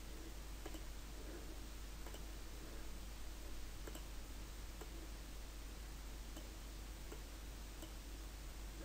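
Faint computer mouse clicks, single clicks scattered a second or so apart, over a steady low hiss and hum.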